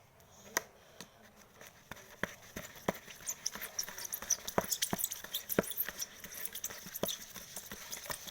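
Sticky homemade slime being mixed and worked, a string of wet clicks and pops that comes thick and fast from about three seconds in.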